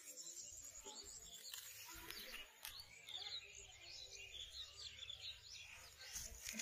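Faint birds chirping, many short calls one after another, with a few light clicks.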